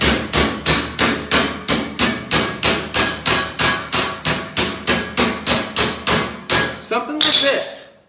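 Steady hand-hammering of thin sheet metal against the edge of a steel I-beam, about three to four sharp metallic strikes a second, folding a lip over along a taped line on a patch panel. The hammering stops about a second and a half before the end.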